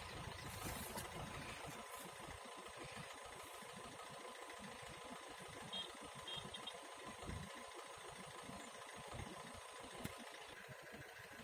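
Engine idling roughly and unevenly with irregular low pulses, on a cold morning start that the owner describes as hard.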